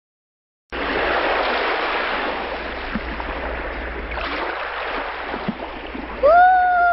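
Rushing water like a wave washing in, heaviest in the first few seconds and easing off, with a couple of small knocks. Near the end a high sliding tone starts, rising and falling.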